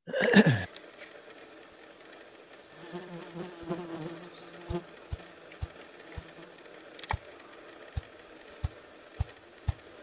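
Ruffed grouse drumming: a male's wing beats make low, muffled thumps, starting a few seconds in at about two a second and gradually quickening, the opening of a drumming roll. A brief buzz comes before the thumps, and a short loud burst sounds at the very start.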